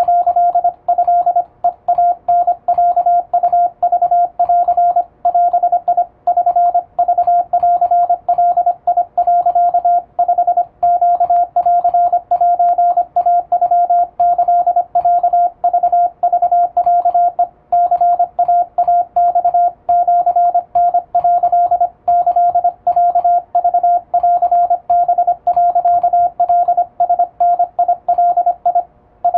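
Japanese Wabun Morse code sent with an electronic keyer: a single steady mid-pitched tone keyed on and off in fast, even dots and dashes, with short gaps between characters and a brief pause near the end.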